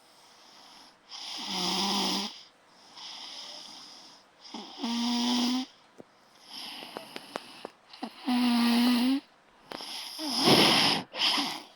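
Snoring in a regular rhythm: four loud snores about three seconds apart, each carrying a low steady drone, with softer wheezy breaths between them.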